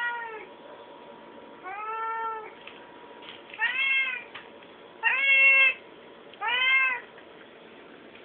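Cat meowing repeatedly: five meows about a second and a half apart, each rising and then falling in pitch.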